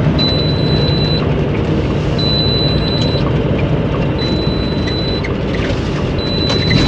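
Steady engine and road noise inside a moving vehicle's cab, with a high-pitched electronic beep sounding for about a second every two seconds.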